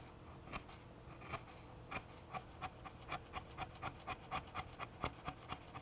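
Sharp hand chisel paring end grain on the cut end of a Type 99 Arisaka's wooden fore-end: a quiet run of short scraping strokes that quicken to about four a second. The strokes shave down high spots so the cut face sits flat.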